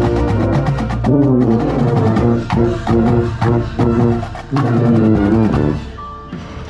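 Drum corps brass and drum line playing at full volume, with the contrabass bugles close by. Held brass chords bend in pitch about a second in, then give way to short repeated chord hits over the drums. The music drops away near the end.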